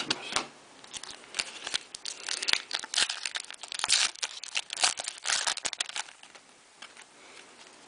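Crinkling and tearing of a trading-card pack wrapper being handled and opened: a run of short rustles that dies down after about six seconds.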